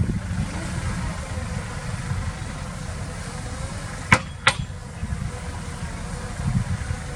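Heavy diesel machinery running with a steady low rumble. Two sharp knocks a third of a second apart come about four seconds in.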